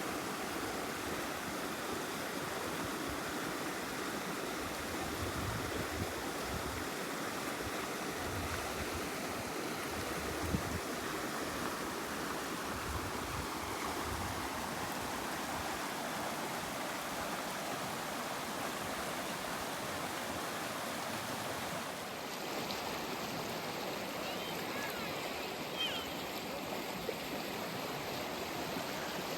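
Mountain stream water rushing and babbling over rocks, a steady sound that shifts in character about two-thirds of the way through.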